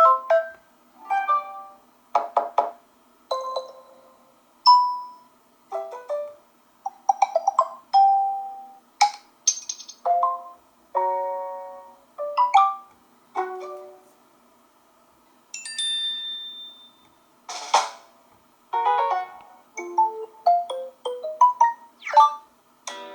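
Samsung Galaxy J7 (2016) notification tones played one after another: some twenty short chimes and jingles, each ringing out briefly and fading before the next begins.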